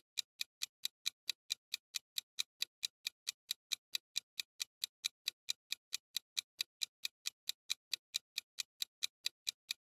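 Countdown-timer clock-ticking sound effect: quick, even, crisp ticks, about four to five a second, marking the time left to answer.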